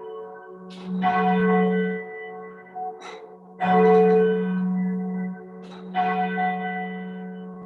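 Single church bell tolling slowly, struck three times about two and a half seconds apart, each stroke ringing on with a low hum that fades before the next. It is a memorial toll, one stroke for each week of the past year.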